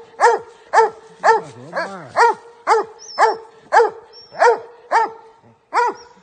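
Coonhounds barking treed: a steady, rapid chop of short barks, about two a second, with a deeper voice joining briefly about two seconds in.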